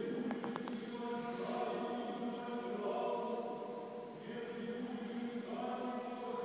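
Church choir chanting in long held chords of several voices, the chord changing about four seconds in and again shortly after.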